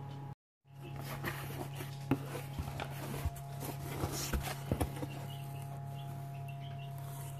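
Plastic wrapping and packing crinkling and rustling, with scattered clicks, as the wrapped contents of a box are handled. Under it runs a steady low hum with faint high chirps. The sound cuts out briefly just after the start.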